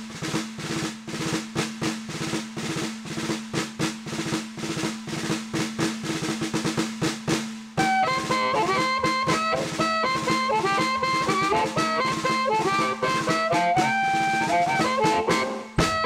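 Music: a fast snare-drum pattern alone for about eight seconds, then a melody comes in over the drums.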